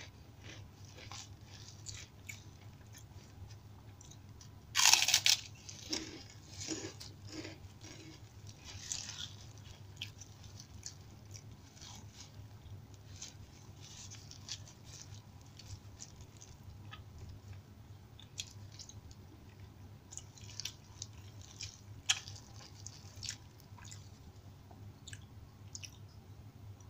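Close-miked eating: crisp crunches of kerupuk crackers being bitten and chewed with rice, the loudest crunch about five seconds in, followed by softer, irregular chewing sounds.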